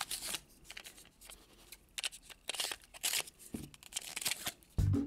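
Toy mystery-pack packaging being opened and handled: irregular crinkling, rustling and small plastic clicks. Music comes in right at the end.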